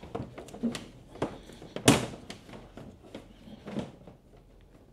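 Handling noise as a power cable is fed through a through-hole fitting in a plastic kayak hull: a string of light knocks and rustles, the loudest about two seconds in.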